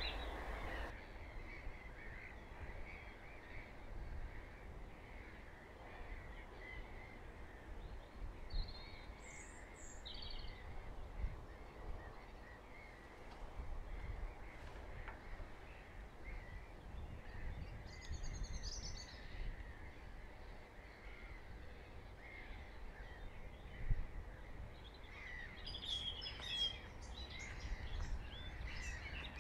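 Outdoor ambience of a low wind rumble with scattered bird calls: a few short high calls about a third of the way in and again past the middle, and a run of chirping near the end. A single sharp knock about four fifths of the way through.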